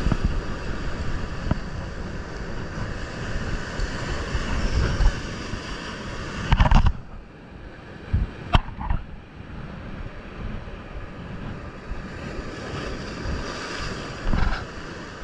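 Sea surf breaking and washing over shoreline rocks, a steady rushing wash that is louder in the first half, with wind buffeting the microphone. A few sudden knocks cut through it, the loudest about six and a half seconds in, others near eight and a half seconds and near the end.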